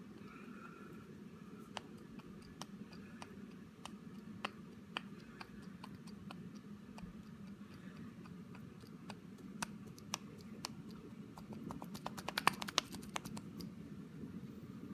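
Sharp light clicks from a 2010 Subaru Outback's wheel hub as the wheel is rocked by hand, from play in a suspected worn wheel bearing; a quick flurry of clicks comes near the end.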